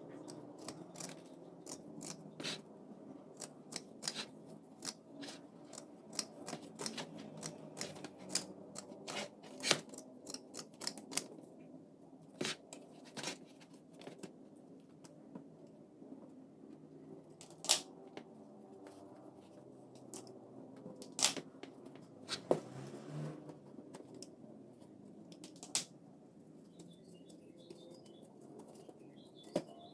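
Scissors snipping through burlap sacking, a quick run of sharp snips in the first half and only occasional snips later, with the rustle of the coarse jute cloth being handled.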